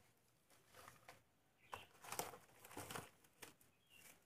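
Faint crinkling of a thin clear plastic bag being handled, in several short rustles.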